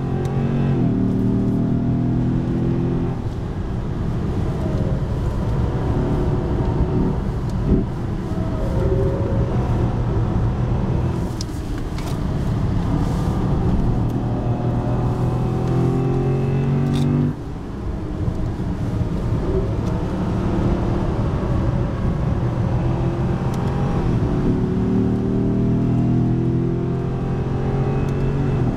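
2010 Lexus IS-F's 5.0-litre V8 heard from inside the cabin on a fast track lap, revving up hard several times and falling back between, with a sudden lift off the throttle about halfway through.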